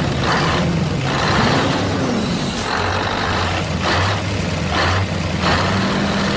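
Vehicle engine running steadily with a low hum; its pitch rises and falls once about two seconds in, over a hiss that swells and fades roughly once a second.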